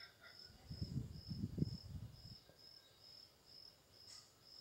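A cricket chirping steadily, about two high chirps a second. From about half a second to two and a half seconds in there is a muffled low rumble, the loudest sound, as chopped tomatoes are tipped into a steel kadai.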